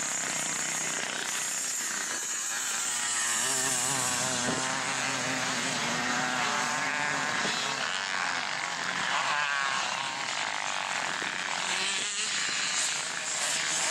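Motocross dirt bike engines revving up and down as the bikes ride the track. The pitch rises and falls repeatedly with throttle and gear changes, and more than one bike is heard at times.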